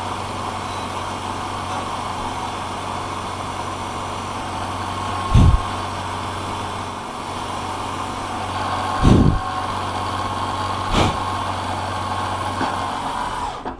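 Vertical milling machine running, its end mill roughing out a brass hand wheel held on a rotary table: a steady motor hum with cutting noise. Three dull thumps come about five, nine and eleven seconds in.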